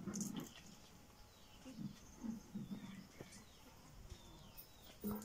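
Faint birds chirping: short, high, falling calls repeated every second or so, with a few low murmurs of voice and a sharp click near the end.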